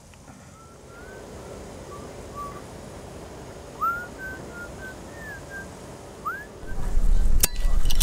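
A series of short whistled notes around the same pitch, a couple of them sliding sharply upward, over faint outdoor background noise. Near the end a loud low rumble comes in with two sharp clicks.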